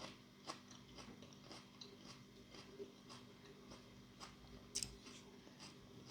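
Faint chewing of food, with soft mouth clicks about twice a second and a sharper click a little before five seconds in.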